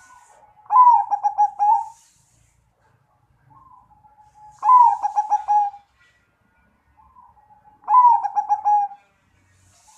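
Zebra dove (perkutut) cooing: three rolling phrases of quick pulsed notes, each about a second long, coming roughly every three seconds, each led in by a faint short note.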